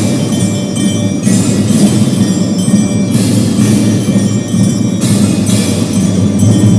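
School marching drum band playing: bell-lyra melody over a steady bed of drums and brass-like sustained tones, with cymbal crashes every second or so.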